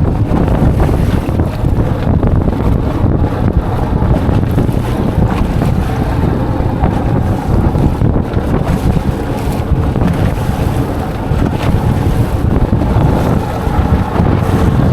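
Wind buffeting the microphone on a small open boat at sea, a loud, continuous rumbling with the sea's wash beneath it.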